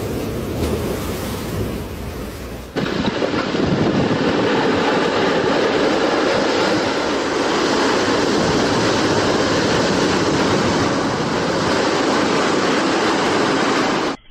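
Rooftop infinity-pool water sloshing and spilling over the pool's edge as the building shakes, with wind on the microphone. About three seconds in, it switches abruptly to the loud, steady noise of a massive landslide, rock and debris pouring down a cliff face, which cuts off just before the end.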